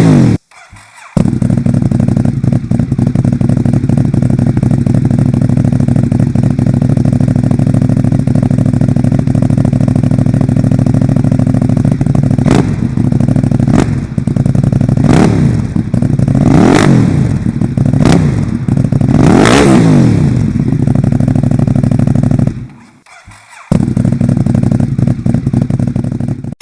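Ducati Monster 821 with its stock exhaust, its 821 cc L-twin idling with a steady, loud note. It is blipped about five times in the middle, each rev rising and falling back to idle, the last the longest. The sound drops out briefly near the end, then runs again.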